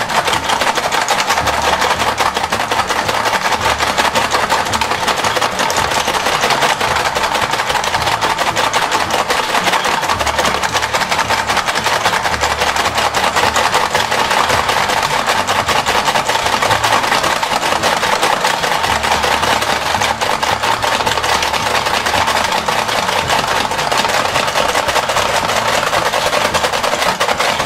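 Battery-powered Paw Patrol ball-racing toy running: a dense, rapid plastic clatter over a motor whir, steady and continuous.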